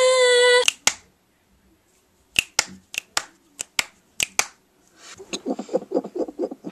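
A person's short, held vocal note, then a series of sharp clicks, about eight spread over two seconds, and from about five seconds in a fast, even run of softer clicking ticks.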